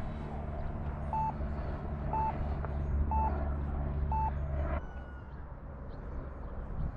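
Four short electronic beeps at one pitch, about one a second, from a radio-control transmitter, over a steady low rumble that cuts off suddenly a little before five seconds in.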